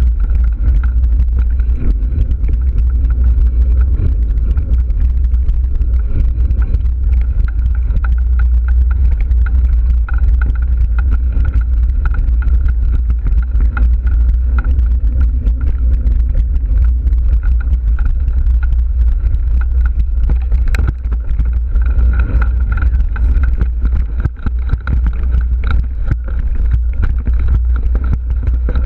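Riding noise of a mountain bike on a dirt singletrack, heard through an action camera: heavy wind buffeting rumbles on the microphone, over continuous rattling and rolling noise from the bike on the rough trail.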